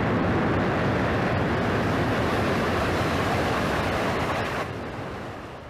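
Boeing C-17 Globemaster III's four Pratt & Whitney F117 turbofan engines running at high power as the aircraft rolls along the ground, a steady loud rushing noise that fades away about a second before the end.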